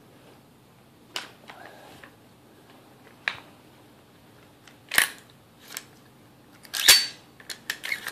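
Sharp metal clicks and clacks of a Del-ton AR-15 being opened up to take the bolt out, the parts knocking together as they are pushed and pulled. The clicks are scattered, loudest about five and seven seconds in, with a quick run of them near the end.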